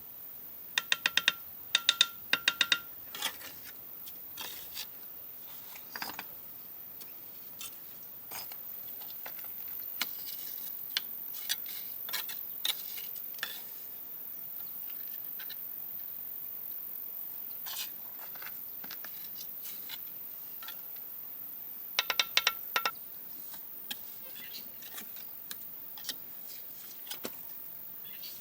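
Quick runs of sharp, ringing metallic clinks, one run about a second in and another near the end, with lighter taps and scrapes in between.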